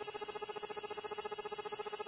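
Large brown cicada (aburazemi) singing its long, unbroken 'giiii' call, a steady high buzz held at an even level, the call it gives while sitting still. The high sound is clipped and distorted in the recording.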